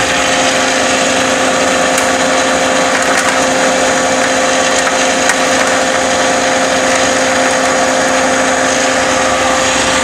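Belt-driven rock salt grinding machine with a 3 HP electric motor running steadily while it grinds lumps of rock salt to powder: a continuous mechanical whir over a steady hum.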